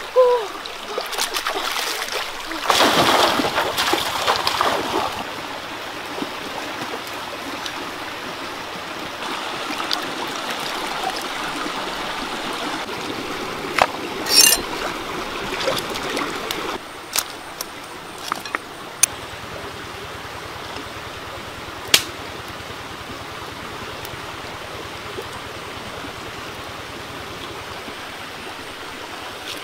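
Shallow rocky stream running steadily over stones, with water splashing in the first few seconds. A few sharp knocks and clicks sound about halfway through.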